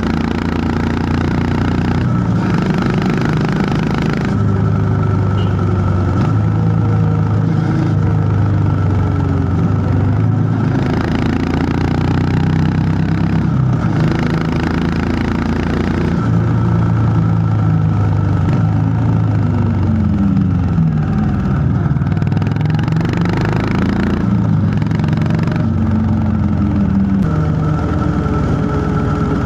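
A Honda CB350 H'ness's air-cooled single-cylinder engine running under way. Its pitch rises and falls as the rider works the throttle and gears, with several falling sweeps as it slows.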